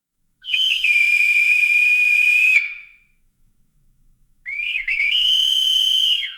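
Two long, steady whistle blasts, the second slightly higher and sliding up into its held note, with a pause of about two seconds between them.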